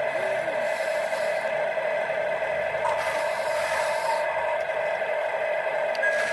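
Toy RC excavator's small electric motors and plastic gearboxes whining steadily, with light scraping; a second, higher whine joins for about a second and a half near the middle.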